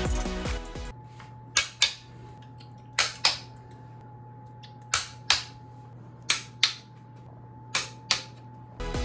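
Five pairs of sharp clicks or taps, roughly a second and a half between pairs, over a faint steady hum. Music fades out in the first second.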